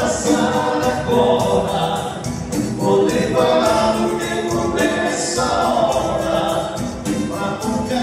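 Live dance band playing a song with sung vocals over a steady beat.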